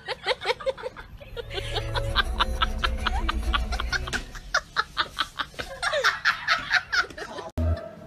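Laughter in a quick, even run of short 'ha' pulses over background music. About seven and a half seconds in, the sound cuts off abruptly.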